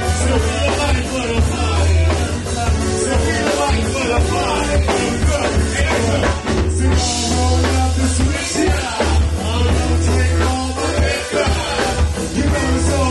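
Live band music: drums, a heavy bass line and electric guitar, with several singers on microphones.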